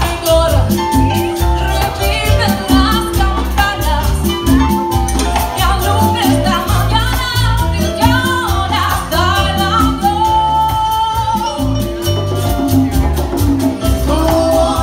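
Live Latin dance band playing loudly through a PA: a lead singer over saxophones, keyboard and drums, on a heavy, steady bass beat.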